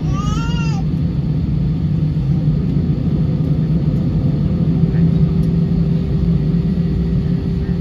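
Steady cabin rumble of an Airbus A320-216 with its CFM56 engines, heard from inside the cabin as the aircraft rolls slowly on the ground before takeoff. A short wavering cry ends within the first second, and a steady hum joins about five seconds in.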